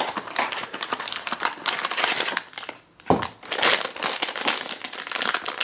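Hands opening a cardboard blind box, then crinkling and tearing open the foil bag inside, with a short thump about three seconds in.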